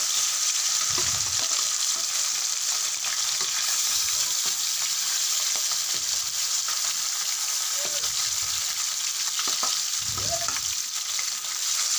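Parshe fish (small mullet) frying in hot oil in a kadai, a steady sizzling hiss. There are a few soft bumps as more pieces are laid into the pan with a spatula.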